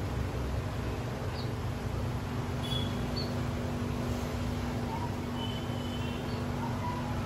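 Steady low background rumble with a steady hum, and a few faint short high chirps scattered through it.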